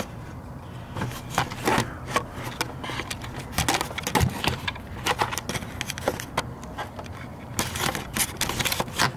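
Irregular metallic clicks, knocks and scrapes of hand tools and parts being worked deep in a truck's engine bay at a spark plug well, over a low steady hum.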